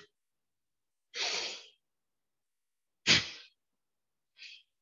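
Forceful breaths through one nostril in Surya Kriya breathing: three rushing nasal breaths with silence between them. The breath about three seconds in is the loudest and starts sharply, and the one near the end is short and faint.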